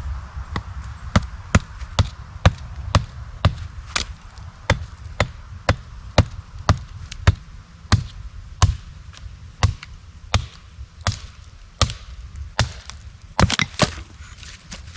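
Kindling being split with a hand cutting tool: a steady series of sharp chopping strikes into wood, about two a second at first and a little slower later on.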